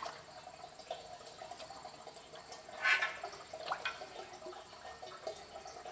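Used engine oil, sludgy after an engine flush, draining into an oil drain pan with irregular dripping and splashing. A louder splash comes about three seconds in.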